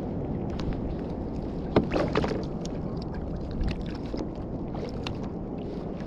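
Steady low rush of sea water and wind around a sit-on-top kayak, with scattered sharp clicks and knocks from handling the freshly caught fish and tackle; the loudest cluster comes about two seconds in.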